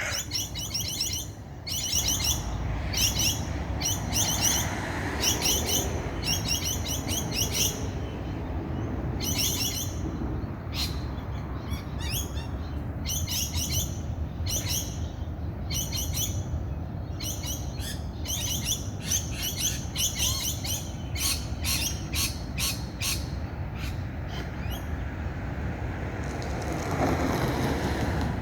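Small songbirds chirping in quick, high twittering phrases, one short burst after another, over a steady low rumble of background noise. A broader rush of noise swells near the end.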